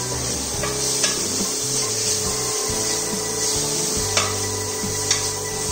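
Sliced onions sizzling in oil in a pressure cooker while a wooden spatula stirs and scrapes them, with a few sharp knocks of the spatula against the pot.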